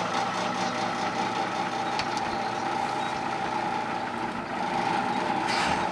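An engine running steadily with an even hum, and a single sharp click about two seconds in.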